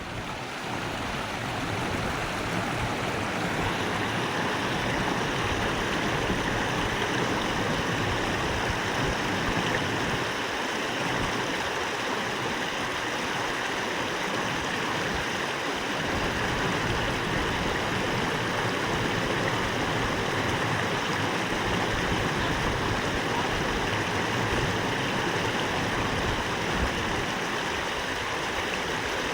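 A small woodland waterfall, water tumbling and splashing in a steady, unbroken rush.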